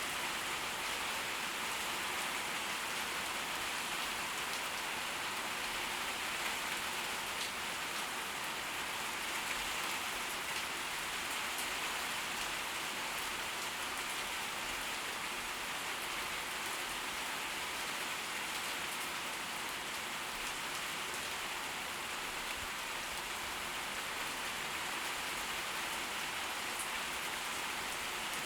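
Steady tropical-storm rain falling, an even hiss with a few faint separate drop ticks.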